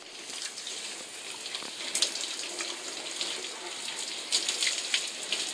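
Shower running: a steady spray of water with sharp spattering, heard through laptop speakers. It comes on abruptly.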